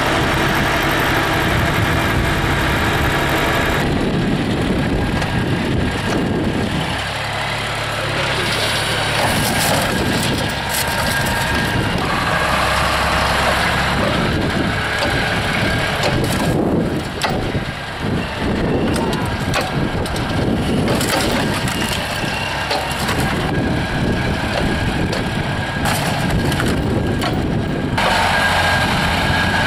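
The air-cooled three-cylinder Deutz diesel of an Atlas 1300 excavator is running under load, with repeated metal crunching and clanking as it tears and folds a scrap car body.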